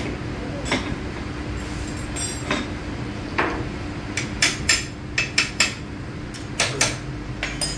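Sharp metal knocks and clinks from tools working on a Royal Enfield Classic 500 engine and frame as the engine is freed from its mounts: scattered single strikes, then a quick run of about five in the middle and a few more near the end, over a steady low hum.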